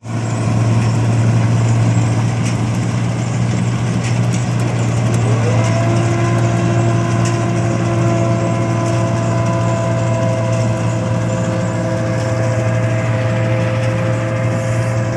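Rice paddy machine's engine running with a steady low hum. About five seconds in, a whine rises in pitch and then holds steady as a further part of the machine comes up to speed.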